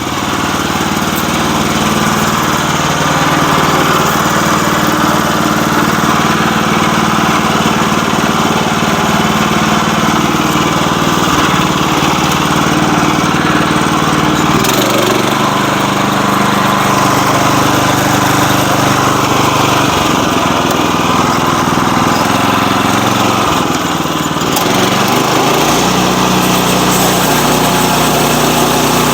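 Portable sawmill's small petrol engine running at speed as the saw goes through a log. It builds over the first few seconds, then holds steady, its note shifting a few times as the load changes.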